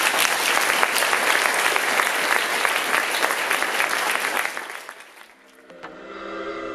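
Audience applauding, dying away about five seconds in; music with held notes then begins.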